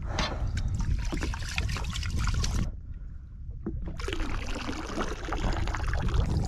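Rice being rinsed by hand in a pot: water swishing and dribbling with small clicks of stirred grains, over a steady low rumble of wind and sea. The sound thins out for about a second in the middle.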